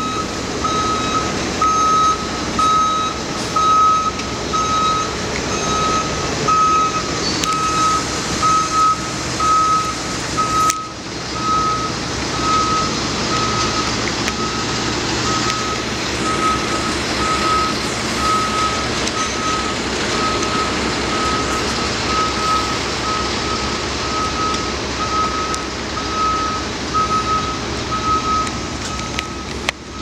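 A truck's reversing alarm beeping steadily, about one and a half beeps a second, over the sound of the truck's engine running. The truck is backing up to be loaded.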